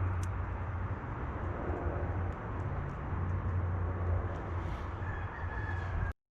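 Steady low outdoor rumble with a few faint clicks, cutting off abruptly about six seconds in.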